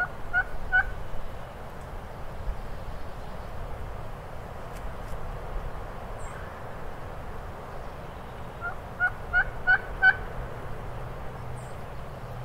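Wild turkey hen giving the plain yelp of the lonesome hen. A run of about four yelps comes at the start, then a long pause as she listens for a reply, then about five more yelps near the end.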